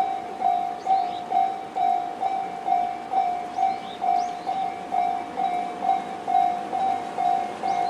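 Japanese railway level-crossing warning bell ringing in an even rhythm of a little over two dings a second. This is the Tobu Railway 'sound C' electronic tone, played by the alarms on both sides of the crossing and signalling that a train is approaching.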